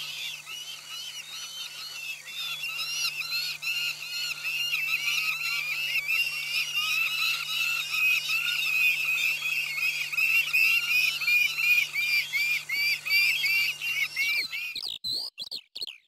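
Saker falcon nestlings begging for food with a rapid, unbroken run of high, repeated calls that rise and fall, getting louder over the first few seconds as the female arrives with prey. The calls cut off abruptly near the end.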